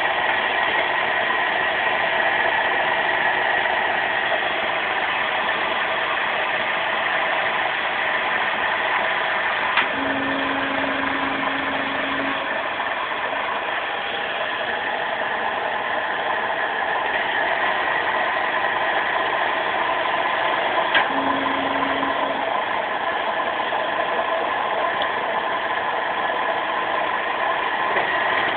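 Wire-rope swaging press running with a steady mechanical noise. Twice there is a click followed by a low steady hum, once for about two seconds and later for just over a second.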